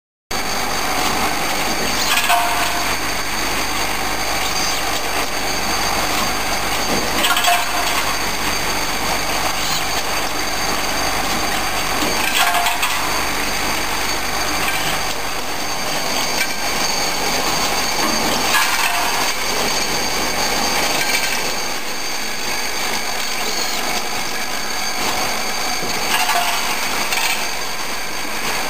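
CNC transfer machine and robotic loading cell running: a steady machining noise with several high steady tones, and a brief louder burst about every five to eight seconds.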